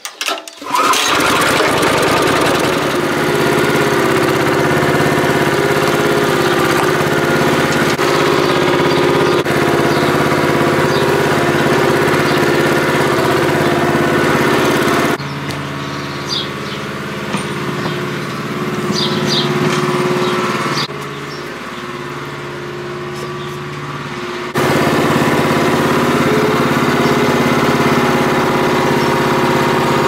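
Small single-cylinder gas engine with a recoil starter, on a hay bale cart, catching just under a second in and then running steadily. It is quieter for about ten seconds in the middle, with a few light clicks.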